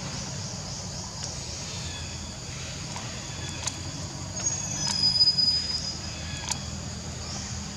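Outdoor background sound: a steady low hum with faint high chirps and a few sharp clicks, and a brief high whistle about five seconds in.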